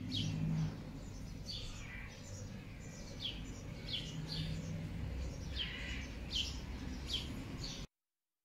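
Small birds chirping: about ten short, high calls that each sweep downward, scattered through the clip over a low steady rumble.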